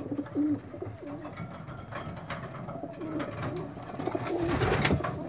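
Racing-pigeon cocks cooing, a run of low, warbling coos one after another, with a couple of short rustles in between.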